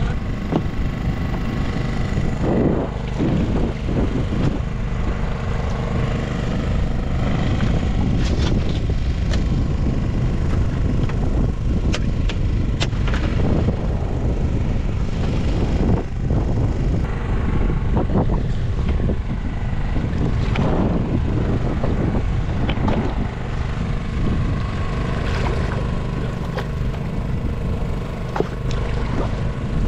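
A boat's engine runs steadily throughout, with many short knocks and thumps over it from fish and gear being handled on the deck.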